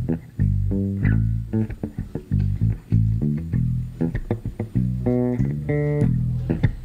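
Live band music: bass guitar and guitar playing a groove of short plucked notes over a strong bass line.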